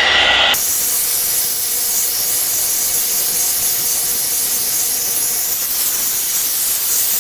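Hot air brush (a one-step hair dryer brush) blowing steadily, a loud even rush of air. The hiss jumps abruptly to a brighter, higher sound about half a second in, then holds steady.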